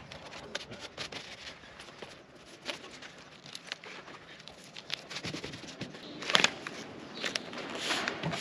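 Self-adhesive flashing tape crackling and rustling as it is pulled along the door head and smoothed by hand onto OSB sheathing, with scattered small clicks and a louder burst of crackling about six seconds in.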